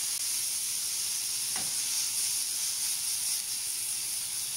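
Diced fresh tomatoes and eggplant sizzling in a non-stick frying pan: a steady high hiss, with one faint tap about a second and a half in.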